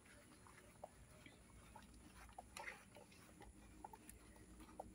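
Near silence, with faint scattered soft clicks and rustles from a mother dog tending her newborn puppies.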